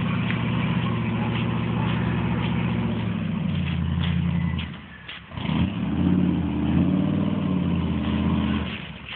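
Chevrolet K5 Blazer's engine revving hard under load as it tows a camper trailer stuck in mud. It eases off briefly about five seconds in, revs up again, and drops away near the end.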